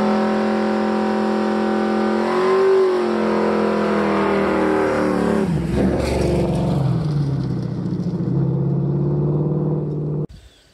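Muscle car engine held at high revs during a tyre-smoking burnout. It drops in pitch about halfway through, runs on at lower revs, then cuts off abruptly just before the end.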